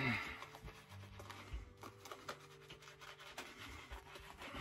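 Soft rubbing and scraping strokes of a wet head shave on the scalp, over quiet background music with steady notes. A brief louder sound with a falling pitch comes right at the start.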